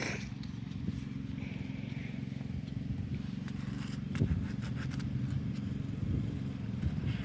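Sanding a 1991 Dodge Stealth wheel rim: repeated rough scraping strokes over a steady low hum, with a knock about four seconds in.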